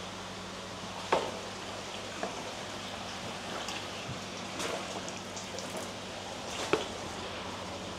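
Steady rush of running water in koi tanks over a low steady hum, with two short, sharp sounds, one about a second in and one near the end.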